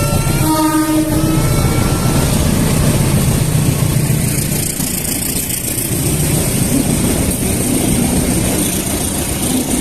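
A vehicle engine running steadily: a loud, continuous low rumble.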